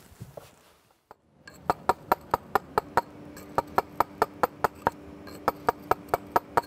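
A steel stone-carving chisel is struck with a round-headed mallet, cutting into stone. It makes a quick, even run of sharp taps, about five a second, starting about a second and a half in.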